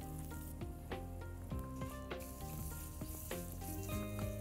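Fresh curry leaves sizzling in hot oil with mustard seeds, urad dal and dried red chilli: the tempering (tadka) for coconut chutney, stirred with a spatula near the end. Background music plays under it.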